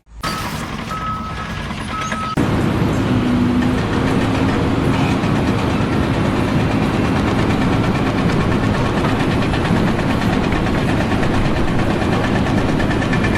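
Two short, steady beeps like a reversing alarm, then, about two seconds in, a heavy vehicle's engine starts running loudly and steadily until it cuts off suddenly at the end.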